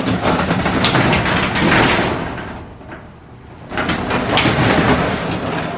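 Metal roll-up storage unit door rattling as it is pulled down shut. After a short lull it rattles again as it is raised.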